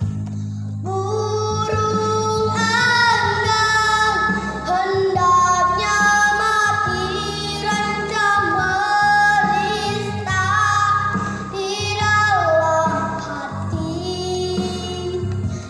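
A young girl singing a solo over a steady low backing accompaniment, holding long notes with vibrato.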